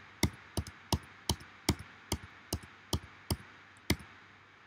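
Computer keyboard keys tapped repeatedly, about ten sharp clicks at an even pace of two to three a second, stopping about four seconds in: a key combination pressed again and again to undo a series of steps.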